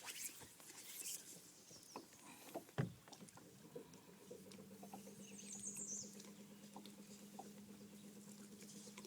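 Small clicks and rattles of gear being handled in a fishing boat, with one sharp knock about three seconds in. From about halfway a steady low motor hum sets in and holds.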